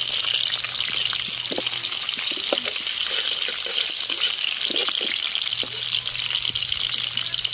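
Chopped garlic and onion sautéing in hot cooking oil in a wok: a steady high sizzle, with a few faint ticks.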